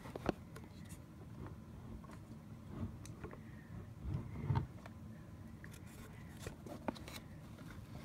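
Quiet room with scattered faint clicks and a soft low thump about four seconds in: handling noise from the phone held over the dollhouse.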